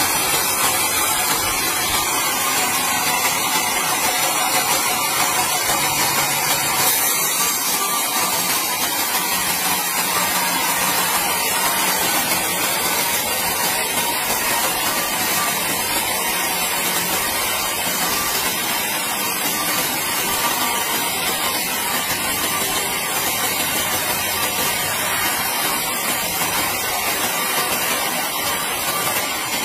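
Sawmill band saw running steadily as its blade rips lengthwise through a large log, a continuous even noise with most of its energy high up.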